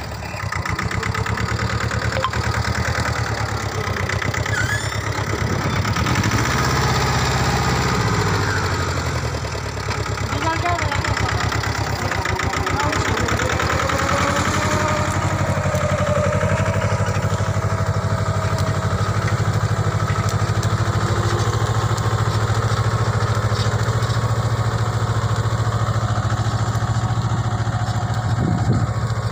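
Mahindra Jivo compact tractor's diesel engine running steadily under load while it pulls a seed drill.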